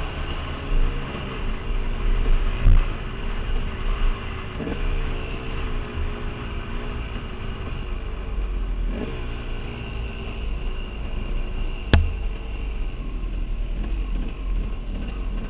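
KTM dirt bike's engine running on a rough dirt trail, the revs rising and falling with the throttle several times. A single sharp knock about twelve seconds in.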